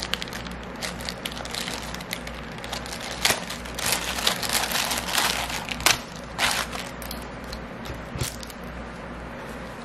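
Thin clear plastic packaging bag crinkling and crackling in the hands as it is opened and a strap is pulled out. The crackles come irregularly and are loudest in the middle few seconds.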